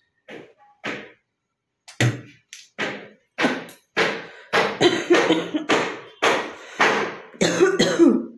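A woman coughing over and over in short hacking coughs from a chesty cough that brings up phlegm. Two faint coughs come first, then from about two seconds in a louder run at roughly two coughs a second, growing denser.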